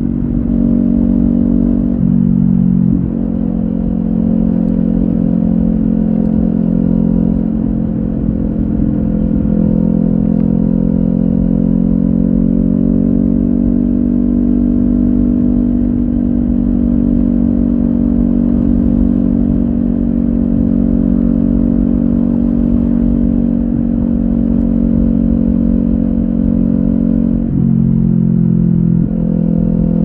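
Kawasaki Ninja 400's parallel-twin engine through an Akrapovic carbon slip-on exhaust with its dB-killer insert removed, cruising at steady revs. The engine note changes briefly about two seconds in and again near the end.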